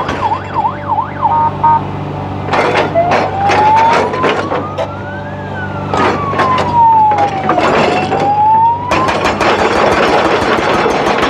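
Siren going from a fast yelp into a slow rising-and-falling wail, over a steady engine hum and repeated sharp knocks and clatter that thicken near the end.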